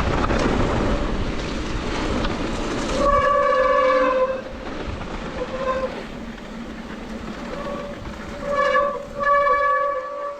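Mountain bike disc brakes squealing on and off in short, steady-pitched squeals, over the rumble of tyres on a dirt trail and wind.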